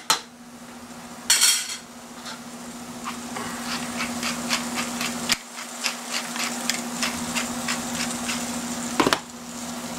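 Diced ham frying in a stainless-steel skillet on a gas burner: a sizzle with a run of quick crackling ticks through the middle. A metal spatula clinks against the pan right at the start and clatters about a second and a half in, and there is a knock near the end.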